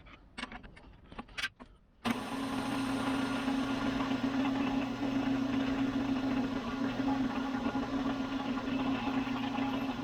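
A few light knocks of handling, then a drill press motor switched on about two seconds in, running steadily with a strong hum, spinning an awl chucked in it for sanding.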